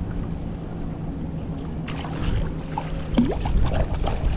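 Water sloshing against a kayak hull, with wind rumbling on the microphone. From about two seconds in there is a run of sharper splashes and knocks, and a short rising squeak just past three seconds.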